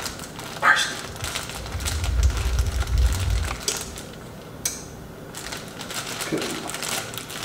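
Plastic zip-top bag crinkling and rustling as raw scallops are squeezed and shaken out of it into a stainless steel frying pan, with many small clicks and crackles. A low rumble of handling noise comes in about two seconds in and lasts over a second.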